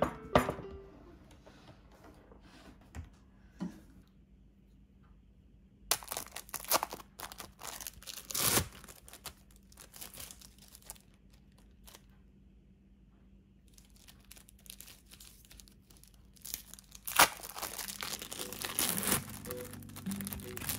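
Plastic packaging crinkling and tearing in two bouts, about six seconds in and again near the end, as processed cheese slices are unwrapped, with quiet stretches between.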